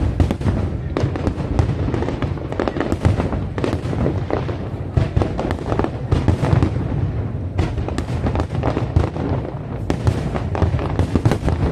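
Aerial fireworks bursting in quick succession: many bangs and crackles a second over a constant low rumble of booms, with no pause.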